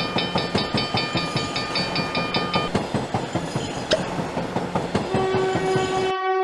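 Train sound effect: a fast, even clickety-clack of wheels on rails with a steady train horn chord held over it, the horn stopping about three seconds in. The rolling clatter cuts off shortly before the end, and a new steady tone starts.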